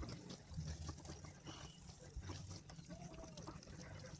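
Silicone spatula stirring whole masoor lentils into a wet onion-tomato masala in a pressure cooker: faint wet scraping and small clicks over a low steady hum. A short faint tone that rises and falls comes about three seconds in.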